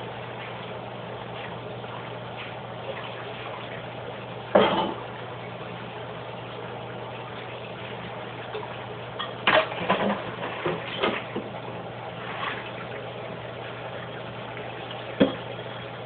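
Water or liquid sounds over a steady hum from a kitchen appliance, with a sharp knock about four and a half seconds in, a cluster of knocks and clatters around ten seconds in, and another knock near the end.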